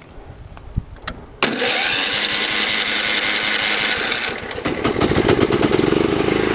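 Kohler Command engine of a John Deere STX38 riding-mower powertrain being started with the key: a couple of faint clicks, then about a second and a half in the engine turns over and fires up, loud and sudden. About four seconds in its sound drops and settles into a steady, even running beat.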